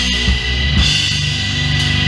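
Live doom metal band playing: low, sustained distorted guitar and bass notes over drums, with cymbal crashes about once a second.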